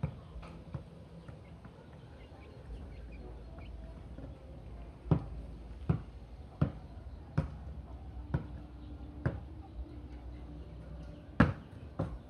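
A volleyball being hit and bouncing: sharp smacks, a few near the start, then a run of about six roughly a second apart, and the loudest pair near the end.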